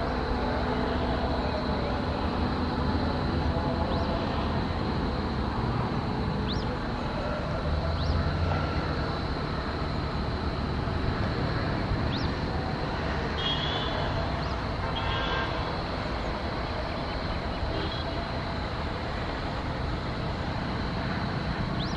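Steady vehicle rumble with no distinct passing event, over a thin steady high whine, with a few faint short chirps.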